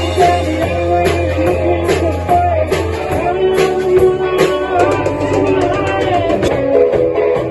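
A live band playing: electric guitar and ukulele with a drum kit keeping time on the cymbals, and a man singing into the microphone.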